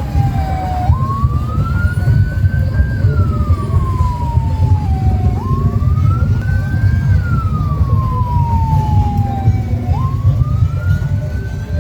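Siren wailing slowly up and down, about three cycles, each rise starting with a sudden jump in pitch, over a heavy low rumble.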